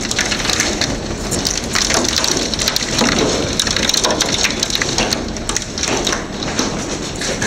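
Heavy hail with rain pelting down: a dense, irregular clatter of hailstones striking hard surfaces.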